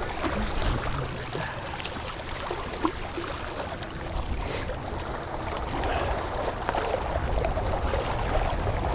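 Wind buffeting the microphone, a steady low rumble with a hiss of moving air and water.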